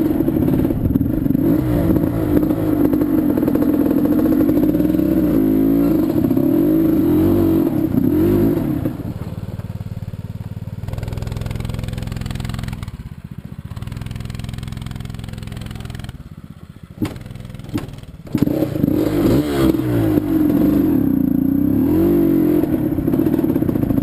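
Quad (ATV) engine running on a dirt trail, its pitch rising and falling as the throttle is worked. Partway through it eases off to a low, steady run, drops almost to idle with a couple of sharp clicks, then revs up again.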